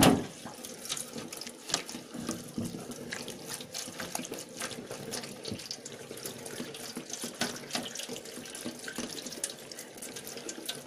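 Tap water running in a weak, thin stream into a stainless steel sink and over a head being rinsed, with many small splashes and drips. A sharp knock right at the start.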